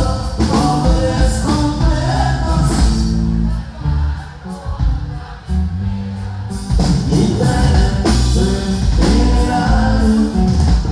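Live norteño band playing with a man singing, over electric bass, acoustic guitar and drums, with a brief quieter stretch midway.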